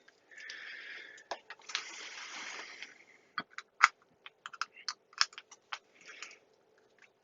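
Handling noise as test leads are connected for a DC voltage measurement: soft rustling, then a quick irregular run of sharp clicks.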